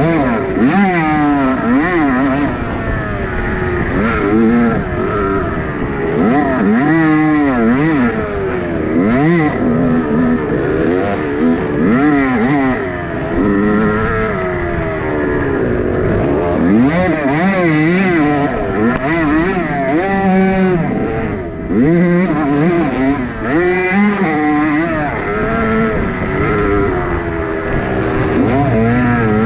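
Dirt bike engine heard on board from the rider's helmet, revving up and dropping back every second or two as the rider works the throttle and shifts along a rough trail.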